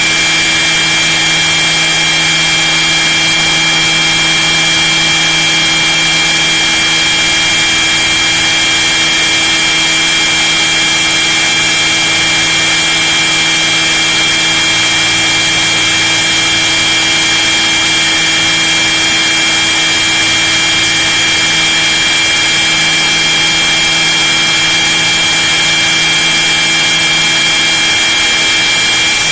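Radio-controlled scale model helicopter's motor and rotor drive running at constant speed, heard from inside its fuselage: a loud, steady high whine over a lower hum, unchanging in pitch.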